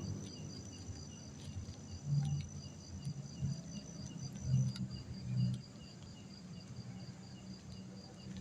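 Crickets chirping steadily, high pulses repeating about three times a second over a constant high trill, with a few soft low swells underneath.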